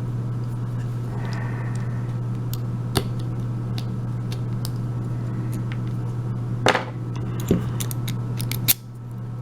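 Scattered sharp metallic clicks and knocks as an Abus 72/40 padlock is taken apart by hand and with tools, over a steady low hum that stops suddenly near the end.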